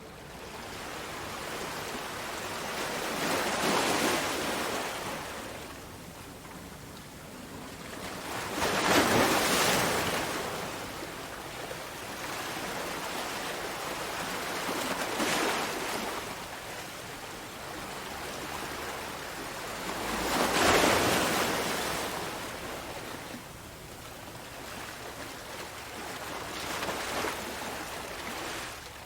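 Ocean waves breaking and washing in, one swell of surf about every six seconds, with the loudest breakers about nine seconds in and again about twenty-one seconds in.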